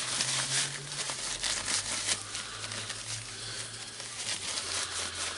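Paper towel crumpling and rustling in gloved hands as grease is wiped off a hammer-drill piston, in a quick run of small rustles.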